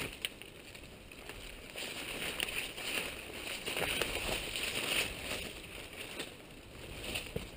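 Footsteps rustling and crunching through forest undergrowth, with scattered twig snaps as someone walks.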